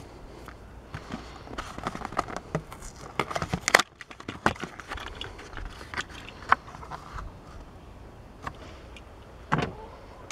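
A Hot Wheels blister pack being torn open by hand: the plastic blister crackles against the cardboard card in a quick run of sharp clicks, ending in a loud snap about four seconds in. A few scattered clicks follow as the die-cast car and card are handled.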